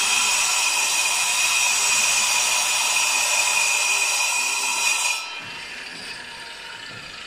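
Angle grinder with a cutting disc cutting a groove into a concrete block wall for pipework, a loud steady high whine over a gritty hiss. About five seconds in the cutting noise drops off suddenly to a much quieter sound.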